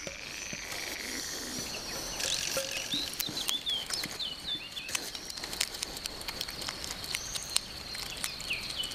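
Scattered crackles and rustles of a hedgehog rooting in dry, crumbly soil, with small birds chirping in short, repeated falling notes from about two seconds in.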